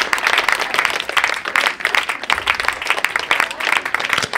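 Crowd applauding, a dense steady patter of clapping.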